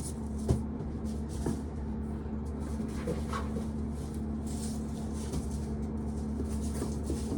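Corn sheller running with a steady hum, a sharp knock about half a second in, and irregular rattling as ears are fed through.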